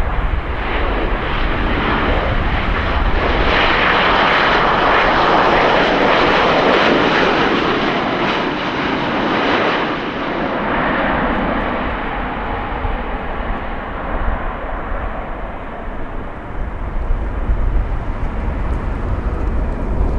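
Jet airliner's engines passing by: the noise swells over the first few seconds, is loudest about four to ten seconds in, then fades away.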